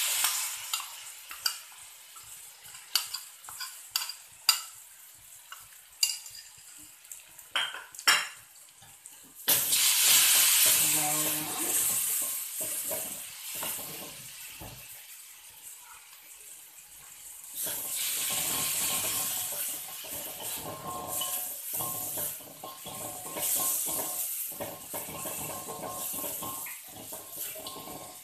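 Curry and turmeric paste sizzling in hot oil in a wok, while a wooden spatula scrapes and knocks against the pan as the shallots and dried anchovies are stirred. Sharp scrapes and knocks come first, then the sizzling rises loudly about ten seconds in and flares up again twice later.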